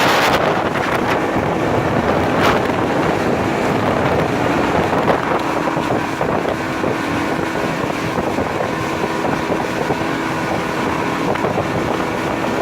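Motorboat engine running steadily under way, with wind buffeting the microphone. A steady engine hum becomes clearer about halfway through.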